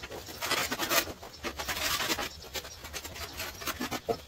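Rough scraping strokes of a tile-setting tool worked against mortar and tile: two longer strokes in the first half, then several shorter scrapes.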